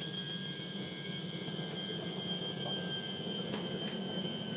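Electric hydraulic pump motor of a Sea-Legs pontoon lift running steadily with a high whine over a low hum.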